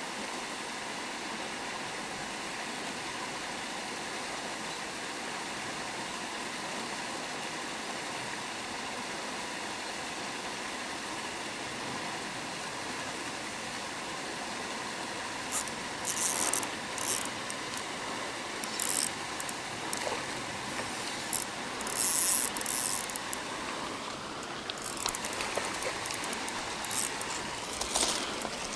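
A spinning reel's drag giving line in short high-pitched buzzes from about halfway through, as a hooked rainbow trout pulls. Before that there is only a steady outdoor hiss.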